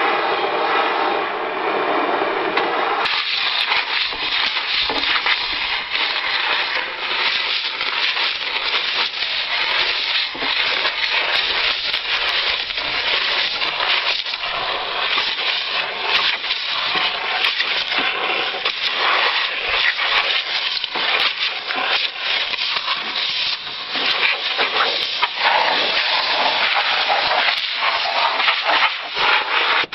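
Compressed air hissing hard from an air-hose blow gun, blasting packed dried grass and dirt out of a discbine's cutter bar and discs. The rough, fluctuating hiss turns brighter about three seconds in.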